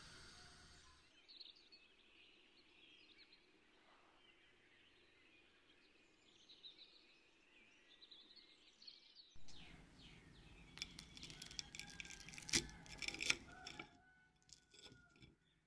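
A fork cutting through a crisp breadcrumb-coated chicken nugget against a plate: a run of crunches and clicks from about nine seconds in, loudest a few seconds later. Faint chirping sits in the background before it.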